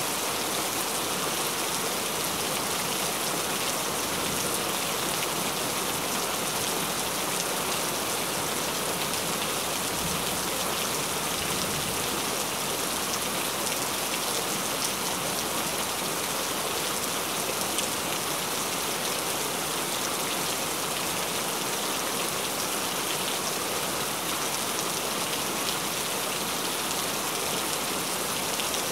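Steady, even rain with fine drops pattering on a surface.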